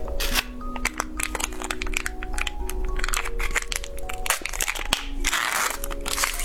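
Plastic snack packaging crinkling and rustling as it is handled and opened, a string of sharp crackles with a denser rustle about five seconds in, over background music with a simple melody.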